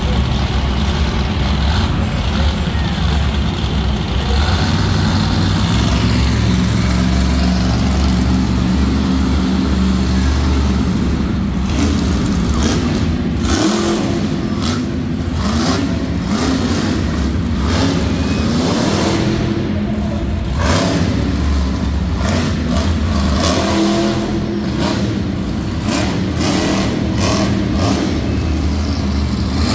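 Monster truck engine running loud and revving up and down. In the second half there is a run of sharp, sudden noises.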